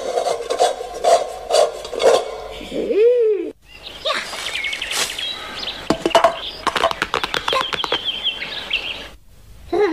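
Cartoon sound effects. A short pitched glide rises and falls near three seconds. After a brief gap comes a high whistling tone over quick clicks and rustles.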